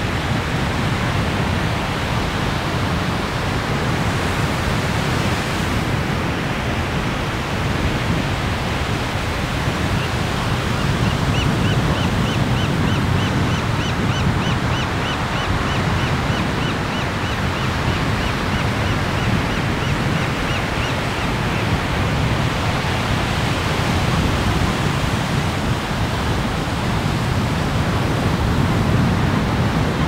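Ocean surf making a steady rushing noise. A faint, rapid run of short high ticks, about four a second, comes in about a third of the way through and lasts about ten seconds.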